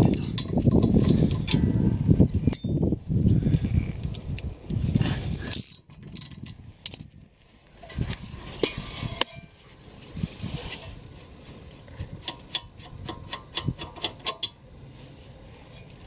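Loud rumbling and knocking for the first five seconds or so, then runs of quick metallic clicks from a socket ratchet working the rear brake caliper bolts.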